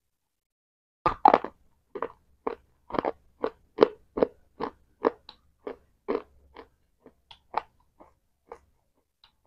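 Close-miked chewing of a hard, crunchy bite: sharp crunches about twice a second, starting about a second in and growing fainter toward the end.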